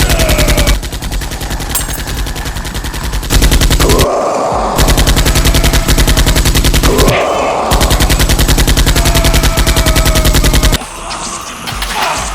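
Rapid automatic machine-gun fire sound effects, laid over a Nerf blaster battle, in long continuous bursts with two short breaks, stopping about eleven seconds in.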